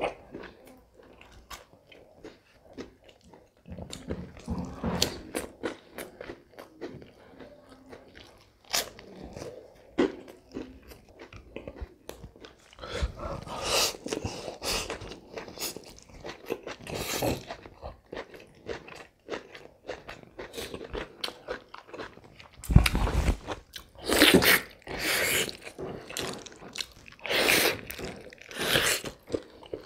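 Close-up eating sounds: wet chewing with smacking clicks, and crunching mouthfuls of fresh lettuce and salad, loudest in stretches about halfway through and near the end, with bites into a fish sandwich.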